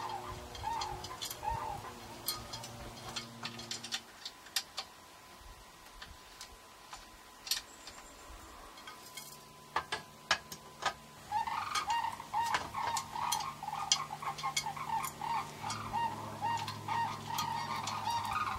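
Sandhill cranes calling in a chorus of rapid rolling, rattling calls, heard at the start and again strongly through the second half. Scattered sharp clicks and taps of metal table parts and bolts being handled come through in between.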